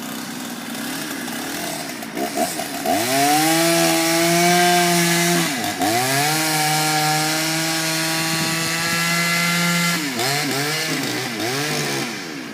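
Old Husqvarna two-stroke chainsaw running at idle, then throttled up to a high steady scream, briefly dropping and rising again. It is held high for several seconds, then blipped about three times before easing back toward idle.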